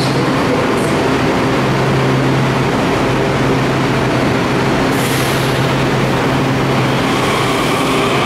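Kawasaki 7000 Series subway train starting to pull out of the station: a steady low hum, a brief hiss about five seconds in, then a whine from the traction motors that rises slowly in pitch near the end as the train gathers speed.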